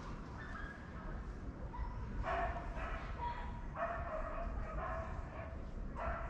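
Gulls calling: repeated short, pitched calls that come in several runs, over a steady low background rumble.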